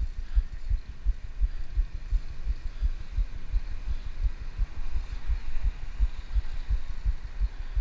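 Wind buffeting the microphone of a handlebar-mounted action camera on a moving bicycle: an irregular low thumping, several knocks a second, over a faint hiss.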